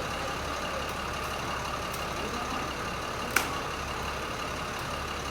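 Steady rumble of a motor vehicle running, with one sharp click about three and a half seconds in.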